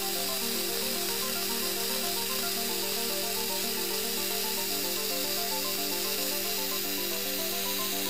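Electronic intro music: a steady low drone under a repeating pattern of short stepped notes, with a constant bright hiss over it.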